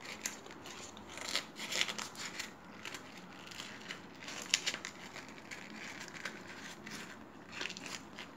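A crumpled A4 sheet of paper being folded and squeezed by hand: irregular crinkling and crackling, louder about a second and a half in, around four and a half seconds, and near the end.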